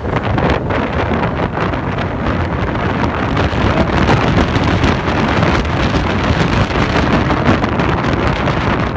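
Wind buffeting the microphone over the engine and running noise of a Polaris Ranger XP 800 side-by-side on the move, with frequent small knocks and rattles.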